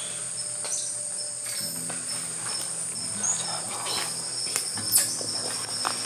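Rainforest insects calling: a steady high-pitched whine with a repeating pulsed chirp a little lower, over soft background music with low held notes.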